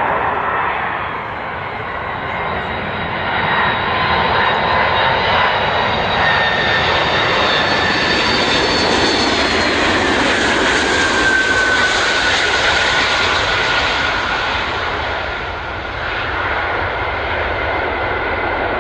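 Antonov An-124's four turbofan jet engines as the freighter passes low on approach. The noise swells to its loudest about halfway through, and a whine drops in pitch as the aircraft goes by. After a short dip near the end, steadier engine noise follows.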